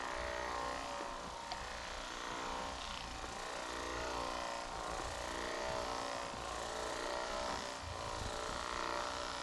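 Handheld percussion massage gun running, a steady electric motor buzz whose loudness swells and eases a little.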